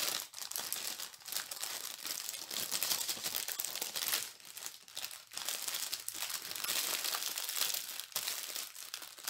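Plastic packaging of a diamond painting kit crinkling and rustling as it is handled, with a few brief pauses.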